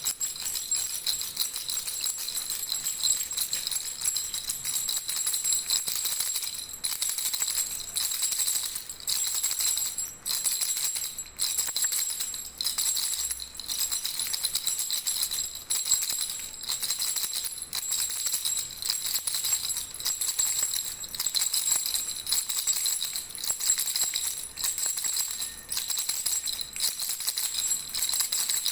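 Baby rattle shaken steadily, with brief pauses every second or two.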